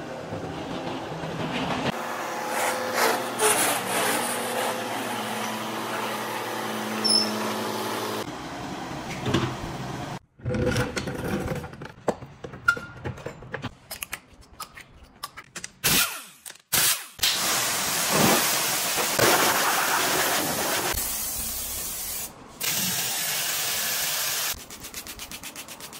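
A string of short, abruptly cut workshop sounds from car detailing: power tools running and scrubbing noise. Near the end a cordless drill spins a brush attachment against a grimy wheel-arch liner with a fast, even rattle.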